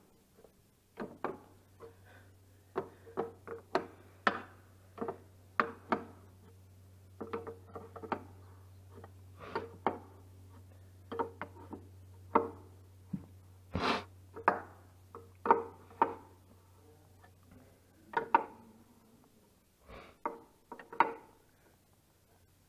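Sharp metallic clicks and knocks from hand tools tightening the hardware on a tractor's dual wheel, coming irregularly about once or twice a second with a short ring after each. A steady low hum runs under them and stops near the end.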